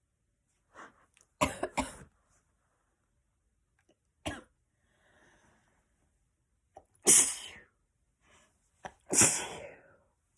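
A girl sneezing several times in a row: two quick sneezes about a second and a half in, a short one around four seconds, then two louder, longer sneezes near seven and nine seconds.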